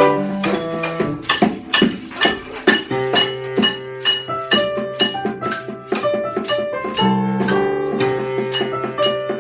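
Music: a steady beat of struck, pitched notes over held low bass notes.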